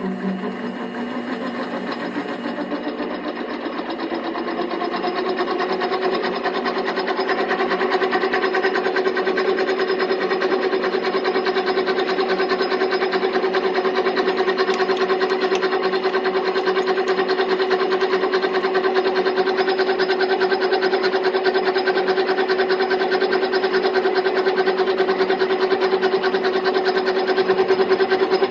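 Lathe just switched on and running: its motor hum climbs in pitch over the first few seconds as it comes up to speed, then holds steady with a fast, even flutter.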